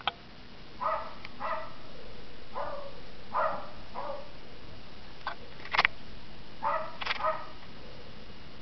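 Wire fox terriers barking at a treed squirrel: about seven short, sharp barks, several in quick pairs, with a pause in the middle where a couple of sharp clicks are heard.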